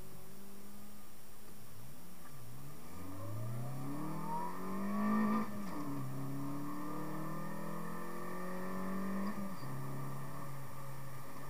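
Renault Megane 1.6 16v four-cylinder petrol engine heard from inside the cabin, holding steady revs at first, dipping as the car pulls away from a standstill, then revving up hard through first gear. Its pitch drops sharply at a gear change about five and a half seconds in, climbs again through second gear, and drops at a second shift about four seconds later.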